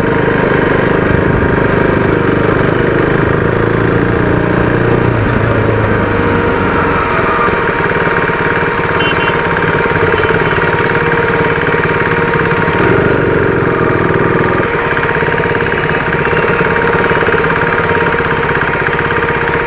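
Motorcycle engine running steadily as the bike is ridden, its note changing about five seconds in and again near fifteen seconds.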